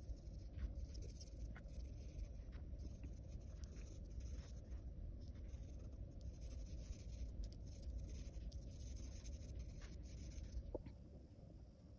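Pencil lead scratching across paper in continuous back-and-forth shading strokes, with small ticks as the tip meets the page. The scratching eases off near the end.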